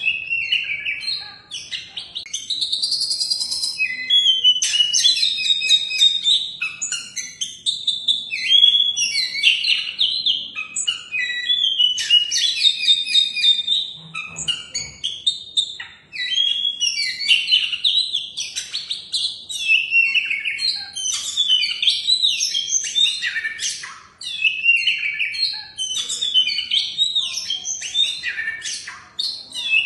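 Oriental magpie-robin (kacer) singing a long, varied song of rapid whistles and chirps, broken only by brief pauses.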